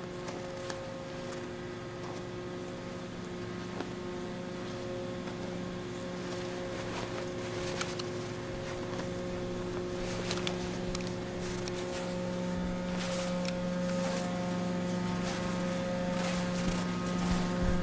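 Gas-engine woodchipper running with a steady, droning hum that grows gradually louder, with scattered short knocks and crackles from the chipping.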